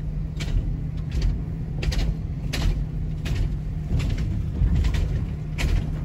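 Car crossing a steel truss bridge, heard from inside the cabin: a steady low road and engine rumble with repeated sharp clacks as the tyres run over the joints in the bridge deck.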